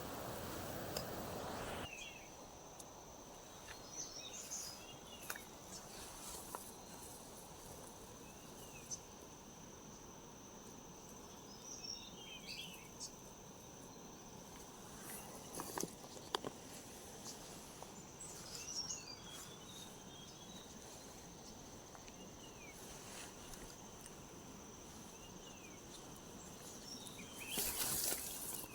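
Rural outdoor ambience: insects keep up a steady high-pitched drone, with short chirping calls every few seconds, a few clicks, and a rustle near the end.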